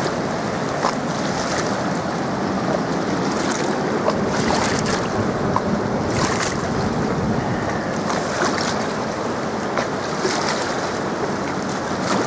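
Steady rush of water pouring through the open gates of a hydro dam, with brief louder splashes now and then.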